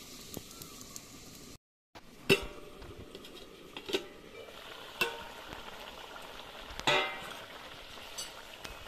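Metal spatula clanking against a steel lid and an iron wok, four clanks spaced about a second or two apart, as the lid comes off and the curry is stirred. Underneath runs a steady hiss from the simmering curry and the wood fire.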